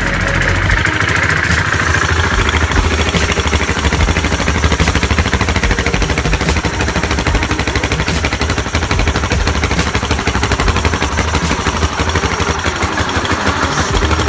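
Bombardier DS650 Baja ATV's single-cylinder four-stroke engine running steadily, with a rapid, even pulsing.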